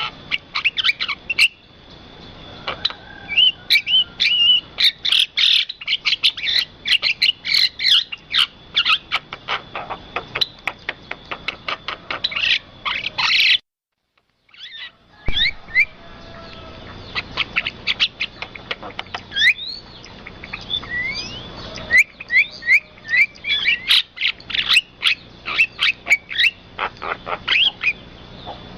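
Birds chirping and whistling busily: rapid sharp calls mixed with short rising whistles. The sound cuts out completely for about a second and a half just under halfway through, then starts again.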